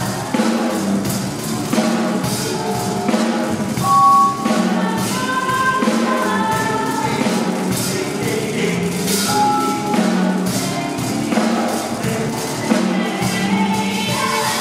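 Live small-ensemble improvised music: sung voices over drum-kit and tambourine-like percussion, with mallet notes from a vibraphone and a cello and harp in the mix. Percussion strikes come thick and steady, and one loud held note stands out about four seconds in.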